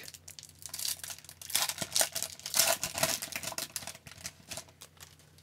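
Foil wrapper of a hockey card pack being torn open and crinkled by hand: a fast run of crackles, thickest in the middle, thinning out near the end.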